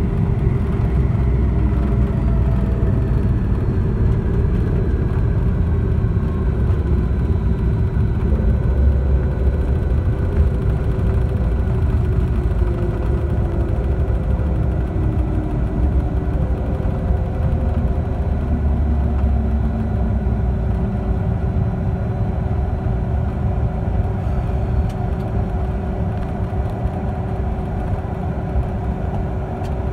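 Cabin noise of a Cessna Citation CJ2 rolling out and taxiing after landing: a steady low rumble with the whine of its twin Williams FJ44 turbofans. The engine tones slide slowly lower as the jet slows, and the sound eases a little near the end.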